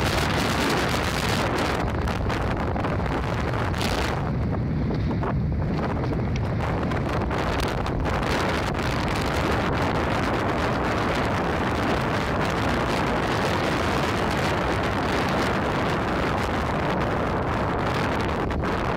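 Wind blowing across the microphone: a loud, steady rush of noise with a heavy low rumble.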